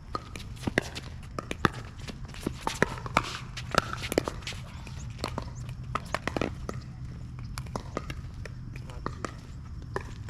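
Pickleball rally: paddles popping the ball back and forth at an irregular pace, mixed with footsteps and the ball bouncing on the court.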